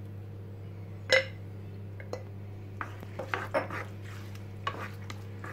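Wooden spoon scraping chopped tomato sauce out of a glass jar, then clicking and scraping across a granite-coated non-stick pan as the sauce is spread. One sharp knock about a second in is the loudest sound.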